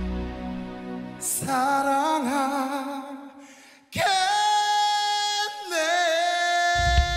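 Music: a song fades out, then a voice sings wavering notes that die away. After a sudden break about four seconds in, long held sung notes follow with little accompaniment, and a low bass comes back in near the end.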